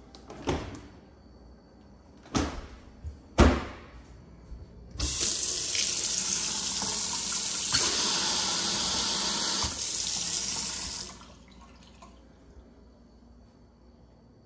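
Three sharp knocks in the first few seconds, the third the loudest. Then a pull-down kitchen faucet runs steadily into a stainless steel sink for about six seconds and is shut off.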